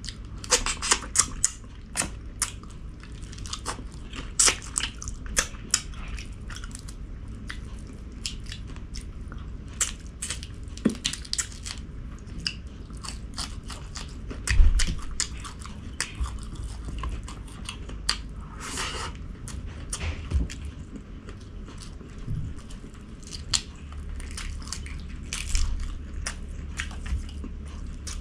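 A person eating: chewing and biting food, with many irregular crisp clicks and crunches, and one heavier thump about halfway through.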